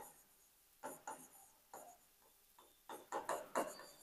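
Faint scratching and tapping of a stylus writing on the glass of an interactive display: a few short strokes about a second in, then a quick cluster of strokes near the end.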